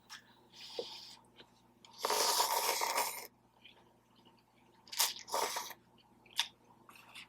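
Close-miked eating noises: a loud crunchy bite lasting about a second, starting about two seconds in, then a shorter one about five seconds in, with small mouth clicks between.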